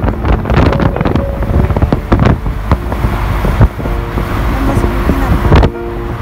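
Wind buffeting the microphone over the low rumble of a moving car, in irregular gusts.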